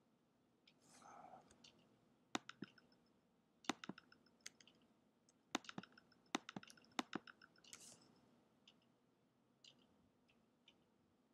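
Computer mouse buttons clicking: a string of sharp clicks, several in quick pairs, bunched in the middle.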